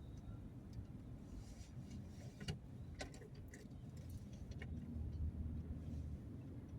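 Low, steady rumble of a moving vehicle heard from inside the cab. A handful of light clicks and rattles come through the middle.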